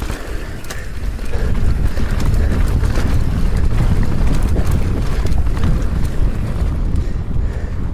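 Mountain bike descending fast over rough ground: wind buffeting the action camera's microphone, with the rattle and knocks of the tyres and bike on rocks and roots. It grows louder about a second and a half in as the speed picks up.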